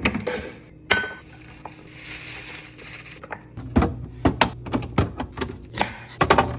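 Food containers and groceries being handled and set down in a fridge: a few knocks and clinks, then a quick run of sharp taps in the second half.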